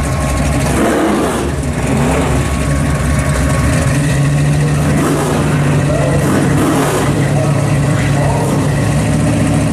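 Two drag-race cars' engines idling at the strip, with a little throttle blipping and a steadier, deeper engine note settling in about four seconds in.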